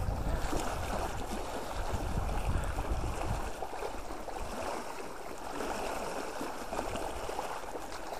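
Small wind-driven waves lapping and splashing against a rocky shoreline, with a low wind rumble on the microphone that eases off after about three seconds.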